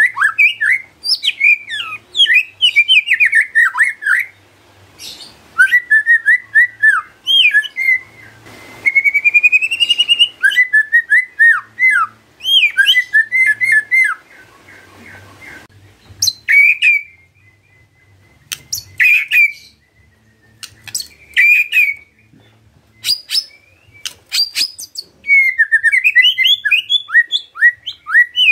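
White-rumped shama singing: fast runs of varied whistled and chattering notes. A rising trill comes about nine seconds in, then sparser sharp single notes through the middle, then rapid chattering phrases again near the end.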